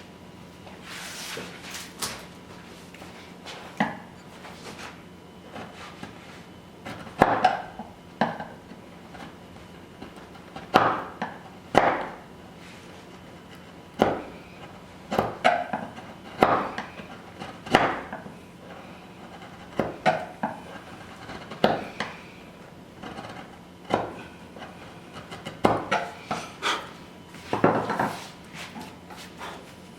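Wooden mallet striking a chisel, chopping waste wood out of a lap joint: separate sharp knocks about every one to two seconds, some coming in quick pairs, each with a short ring.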